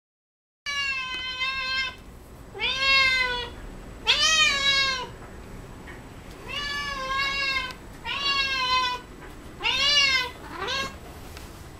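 Domestic cat meowing repeatedly, about seven meows of roughly a second each, many rising then falling in pitch, starting just under a second in. The cat is asking for the pot of cat grass held out to it.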